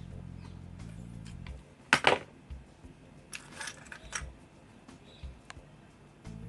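Background music that stops after about a second and a half, then a sharp, loud double clack of small hard objects about two seconds in, a short rasping noise near the middle, and a few light clicks.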